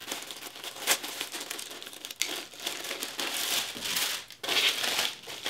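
Paper and cardboard packaging rustling and crinkling as a gift box is opened and its paper wrapping handled, with a couple of sharp snaps about one and two seconds in.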